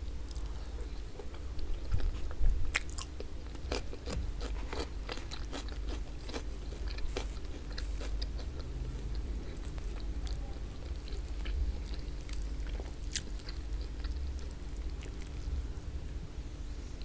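Close-miked chewing of braised oxtail meat and flatbread, with wet mouth clicks and smacks, thickest in the first half of the stretch. A steady low hum runs underneath.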